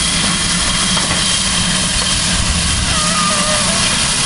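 Railway locomotive standing at a station: a steady, loud hiss with a low hum underneath and a thin high tone held throughout.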